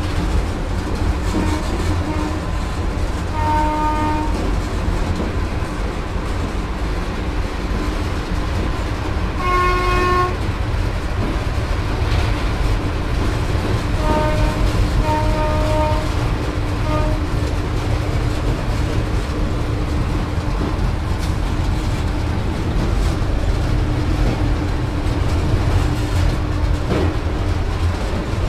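WAP-4 electric locomotive running at speed, heard from inside its rear cab as a loud, steady low rumble. Short train horn blasts sound about 4 seconds in, more strongly about 10 seconds in, and several more as brief toots between about 14 and 17 seconds.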